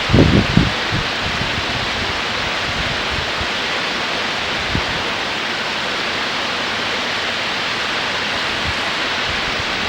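Waterfall: a steady rush of falling water, with wind buffeting the microphone briefly at the start.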